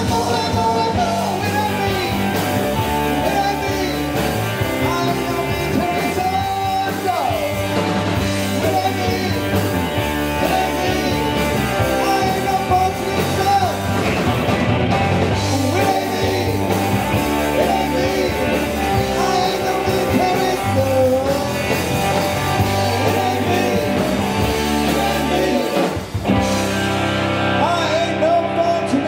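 Live rock band playing electric guitars and drums with sung vocals, loud and continuous, with a brief drop in the sound about three seconds before the end.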